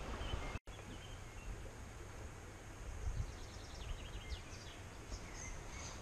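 Small birds chirping in short rising and falling notes from about halfway in, over a steady rush of flowing river water. The sound drops out for a split second just after the start.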